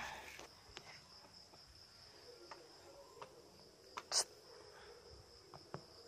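Night insects trilling steadily on one high continuous note, with a few soft clicks and one sharp click about four seconds in.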